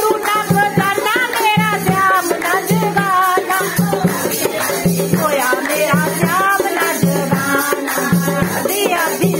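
Women singing a devotional bhajan in a folk style, with a dholak beating a steady rhythm, hand clapping and the metal jingles of a chimta.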